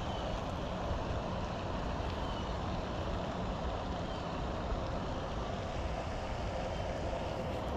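Wind buffeting the microphone: a steady, fluctuating low rumble with an even hiss over it.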